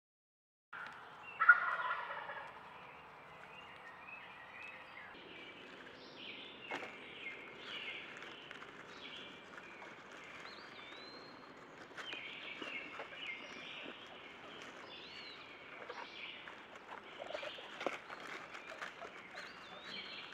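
A wild turkey tom gobbles once, loud and rattling and falling in pitch, about a second and a half in. Faint songbird chirps and whistles with scattered light ticks follow.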